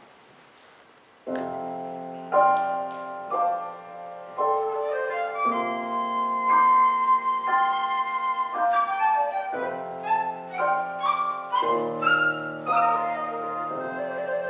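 Flute playing a flowing melody over piano accompaniment, the music starting with a sudden chord about a second in after a hushed moment.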